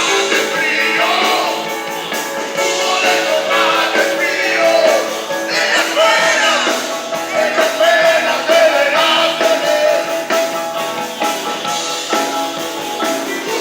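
Live blues-rock band playing, with singing over the instruments.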